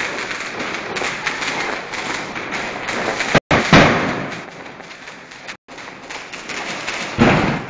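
New Year's Eve fireworks and firecrackers going off in a dense, crackling barrage, with louder thumps about halfway through and near the end. The sound cuts out completely for a split second a few times.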